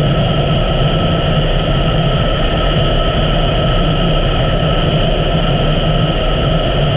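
2017 Honda Africa Twin's parallel-twin engine running steadily as the motorcycle is ridden at an even pace, mixed with riding noise. The sound stays level, with a constant hum above it and no revving or gear changes.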